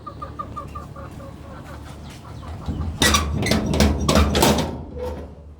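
Chicken clucking in a quick run of short notes, about six a second. Then, about three seconds in, comes a louder, harsher outburst of several rough strokes lasting under two seconds.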